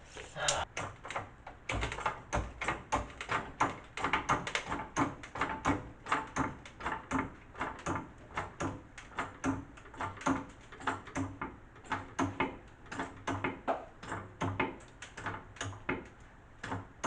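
A steady run of sharp mechanical clicks, about two or three a second, from a jack or strap being worked stroke by stroke to lift a sagging car frame.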